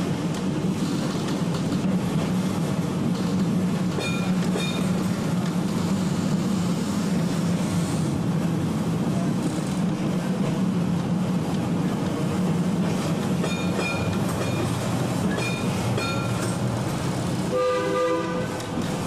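A W2-class tram, built in the late 1920s, running along street track with a steady rumble. Brief high pitched squeals come a few times, and a louder pitched squeal comes near the end as the car takes a curve.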